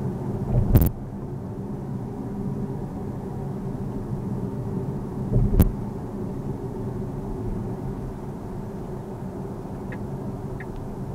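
Steady road and tyre noise heard inside the cabin of a Tesla Model S Performance driving at road speed, with no engine sound from the electric drive. Two sharp thumps come about a second in and again about five and a half seconds in, and a few faint ticks are heard near the end.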